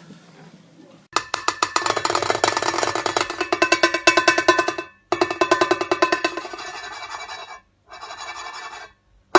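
Percussive music: a fast, even, drum-like rattle of strokes with a pitched ring. It breaks off abruptly a few times.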